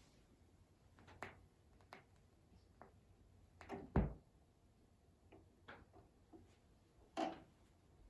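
A few scattered knocks and clicks, the loudest a deep thump about four seconds in and another sharp knock just after seven seconds.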